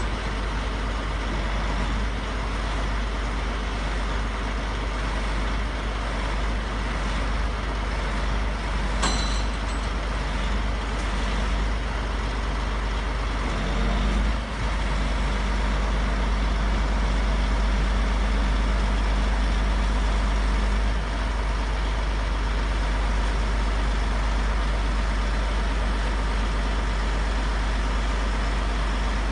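Heavy truck's diesel engine running steadily to power its truck-mounted knuckle-boom crane, with a deep drone. A sharp click about nine seconds in; from about fourteen seconds the hum rises and holds louder until about twenty-one seconds, when the crane is working the lift.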